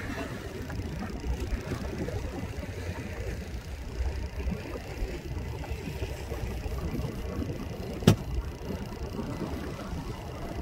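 Steady low rumble of a fishing boat's engine, with one sharp knock about eight seconds in.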